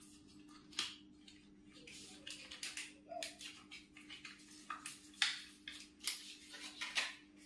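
Irregular short clicks and rustles of a laptop RAM module being handled and swapped in its single SO-DIMM slot, over a faint steady hum.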